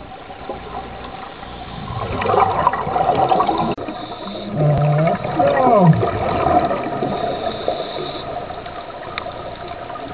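Underwater sound of scuba divers breathing through their regulators. Exhaled bubbles gurgle, growing louder about two seconds in, and a few squeaky, whine-like glides come around the middle.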